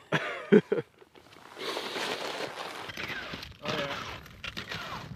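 A few words at the start, then skis sliding and scraping over snow with the light knocks of stepping and poling.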